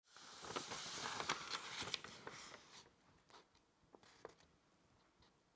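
A stiff paper scroll being unrolled: paper rustling and crackling for about the first three seconds, then only a few faint crinkles.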